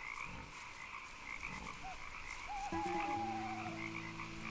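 A chorus of frogs calling in a marsh, a steady massed trilling. About halfway through, low sustained tones come in beneath it.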